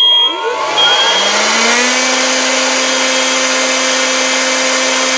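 Electric blower starting up, its motor whine rising in pitch over about a second and then running steadily with a loud rush of air, used to clear test smoke out of a smoke detector. A smoke alarm's high beep dies away at the start.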